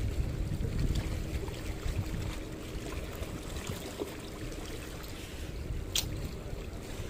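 Sea water lapping and gurgling among the boulders of a harbour breakwater, over a low rumble, with a single sharp click about six seconds in.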